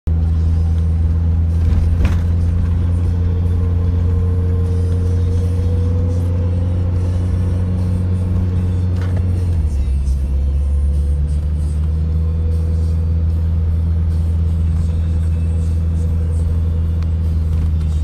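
Steady low drone of a car's engine and drivetrain heard from inside the cabin while driving. The pitch steps down slightly about halfway through as the engine speed drops.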